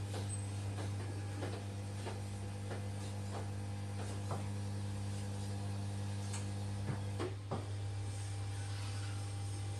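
Electric massage chair running: a steady motor hum with soft regular clicks, roughly one every 0.7 seconds, during the first few seconds, and a couple of sharper knocks about seven seconds in.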